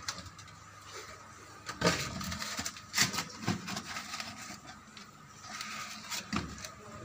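Scattered knocks and clatter, the loudest about two and three seconds in, over a steady high hum.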